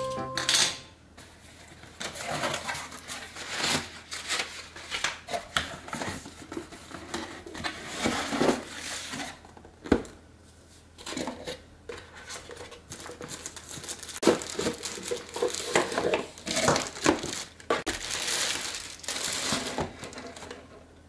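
Cardboard box and plastic packaging rustling and crinkling as a Krups egg cooker is unboxed by hand, with scattered sharp knocks as the box and appliance are set down on the countertop, the sharpest about ten seconds in.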